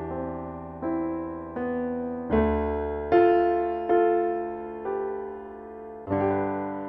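Solo piano playing slow chords, a new chord struck about once a second and left to ring and fade before the next.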